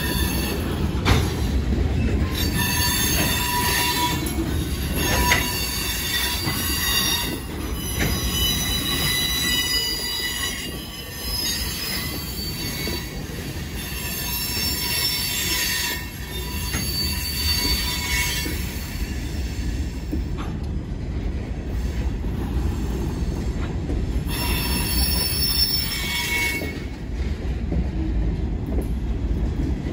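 Wheeling & Lake Erie freight train passing, wheel flanges squealing in several high, shifting tones over a steady low rumble of wheels on rail. The squeal comes and goes, strongest in the first half and again near the end.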